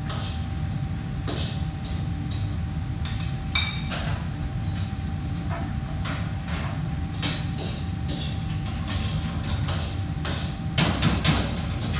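Commercial kitchen ambience: a steady low hum with a thin steady whine, and scattered clinks and knocks of metal utensils and dishes. A short run of louder clatters comes near the end.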